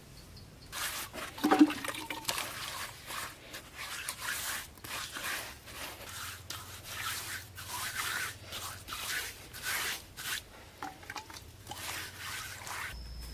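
Repeated rough scraping strokes, irregular at about two to three a second, with one louder knock about a second and a half in.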